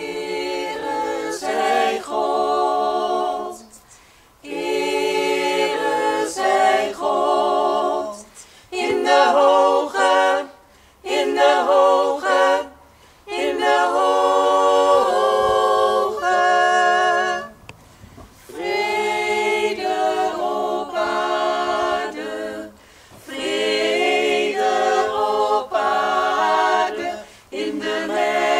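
Small mixed choir of men's and women's voices singing a cappella, in phrases of a few seconds with short breaks between them.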